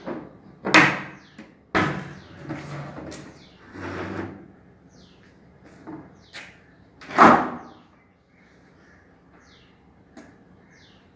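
Wooden extendable table worked by hand: the loose leaf set into place and the table halves slid together, giving a series of wooden knocks and scraping slides. The loudest knocks come just under a second in and about seven seconds in.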